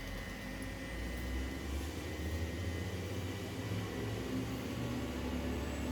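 Steady low mechanical hum, like an engine running at a distance, with a faint high steady tone above it.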